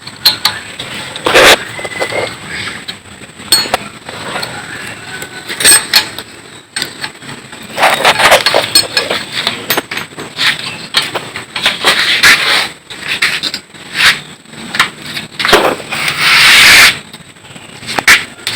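Irregular clinks, knocks and scraping of hand tools and metal parts being handled during an engine teardown.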